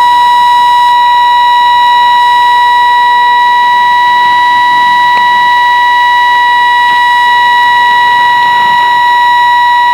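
Steady, unbroken test tone at a constant pitch, announced as −7 dBFS, sent as part of a shortwave test transmission and heard through a radio receiver with a faint hiss beneath it.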